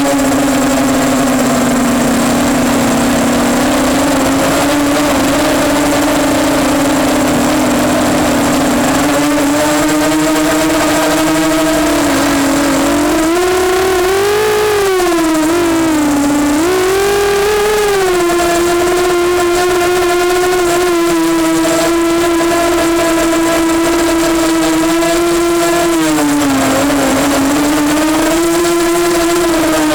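Brushless motors and propellers of an EMax Nighthawk 250 racing quadcopter whining in flight, a steady buzzing hum whose pitch rises and falls with the throttle: several quick swells about halfway through and a dip and rise near the end.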